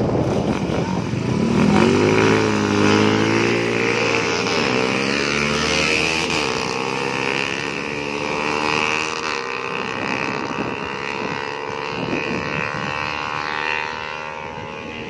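Small motorcycle engines revving hard, their note rising in pitch several times as they accelerate through the gears.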